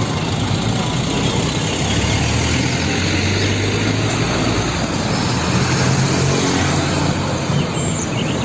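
Heavy diesel dump truck running on a road as it drives past, its engine a steady low drone under road and tyre noise. The sound cuts off abruptly at the end.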